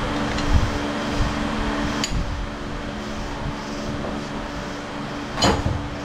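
Steady machine hum, with a sharp click about two seconds in and a louder knock near the end.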